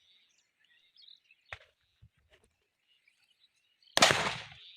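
A Diwali firecracker bomb going off with one loud bang about four seconds in, dying away quickly, after being tossed up into the air. Birds chirp faintly throughout, with a sharp click about a second and a half in.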